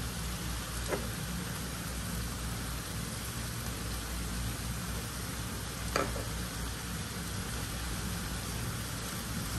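Meat, tomatoes and green peppers sizzling steadily in a frying pan on a gas hob, stirred with a spatula, with two sharp knocks about a second in and about six seconds in.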